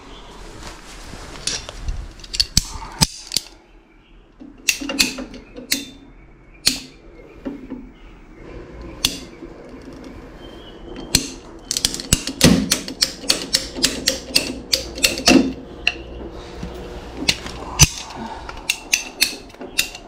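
PVC drain pipe being cut out by hand: a run of sharp plastic clicks and snaps that grows denser about halfway through, to two or three clicks a second.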